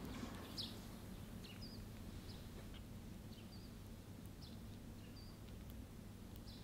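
Strawberry halves being set one by one onto whipped cream on a sponge cake: many short, faint, soft taps and squishes over a low steady room hum.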